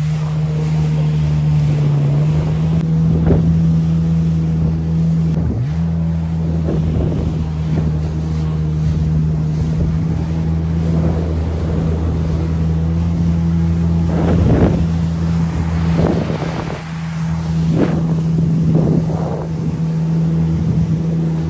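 Jet ski engine running at a steady pitch under way, with wind noise on the microphone and several brief splashes of water.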